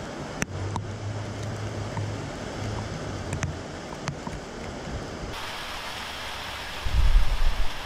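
Rain falling steadily as an even hiss, with a few sharp ticks and a low hum in the first part. After a cut about five seconds in, the rain hiss is brighter, and near the end a loud low rumble comes in.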